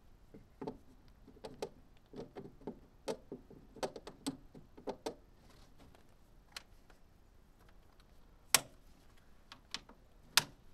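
Scattered light clicks and knocks of plastic and metal parts being handled as the air filter is fitted back into the air cleaner housing of a Kubota KX040 mini excavator, ending with two sharp snaps near the end, the loudest sounds, as the cleaner is closed up.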